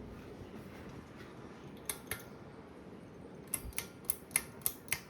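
Ceiling fan running with a steady low hum, with a series of sharp clicks: two about two seconds in, then about six in quick succession near the end.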